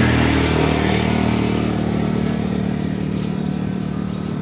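A motor vehicle's engine running steadily close by, loudest at first and slowly fading.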